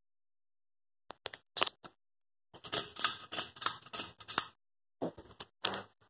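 Runs of rapid, irregular clicking and clattering, starting about a second in and densest from about two and a half to four and a half seconds in.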